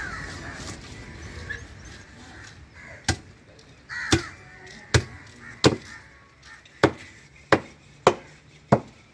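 Heavy cleaver chopping into a large cobia on a wooden block: eight sharp chops, about one a second, starting about three seconds in.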